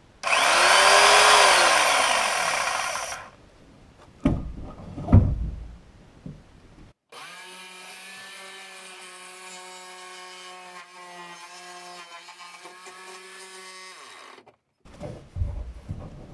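Jigsaw cutting into a boat bulkhead in short runs: a loud burst of about three seconds as the motor speeds up and slows again, a few knocks, then a steadier whining run of about seven seconds that starts and stops abruptly. The blade is cutting off at an angle, which the owner thinks is because the blade has come loose.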